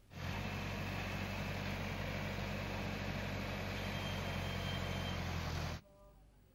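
JCB backhoe loader's diesel engine running steadily, cutting off abruptly near the end.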